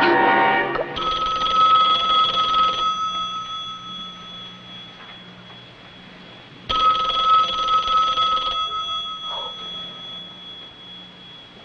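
Telephone bell ringing twice, each ring loud for about two seconds and then dying away, with a pause of a few seconds between rings.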